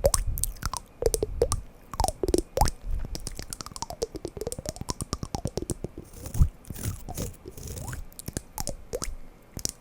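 Wooden blocks knocked and tapped together in a quick, irregular run of sharp clicks, with some sliding and scraping sounds in the middle.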